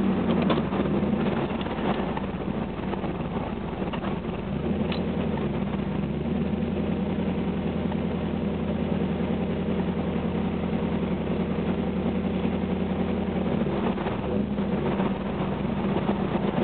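A 1987 Camaro IROC-Z's Vortec TPI 350 V8 running through a 3-inch single exhaust with a high-flow Dynomax catalytic converter and an 80 series muffler. It holds a steady, deep exhaust note, with a brief change in the note near the end.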